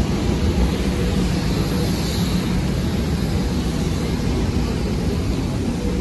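Steady, deep roar of jet aircraft engines and airport ground vehicles, unbroken and even in loudness.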